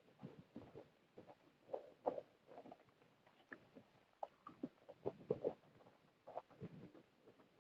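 Close-miked chewing and mouth sounds of a person eating: irregular soft smacks and clicks a few times a second.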